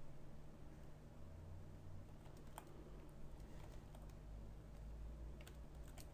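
A few faint, scattered clicks from a computer keyboard and mouse, over a steady low hum.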